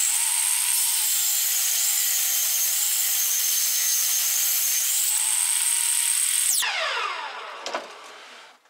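Table saw running and cutting a 10 mm deep step into a strip of laminate flooring, a loud steady high whine. About six and a half seconds in it is switched off and the blade spins down with a falling whine.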